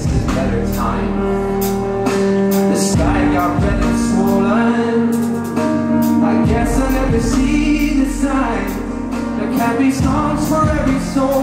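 Live concert music: a man singing into a microphone over strummed acoustic guitar, with band accompaniment and percussion.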